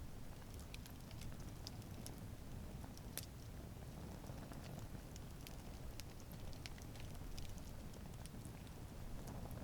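Wood campfire burning with a low steady rush of flames and irregular sharp crackles and pops from the burning wood, one louder pop about three seconds in.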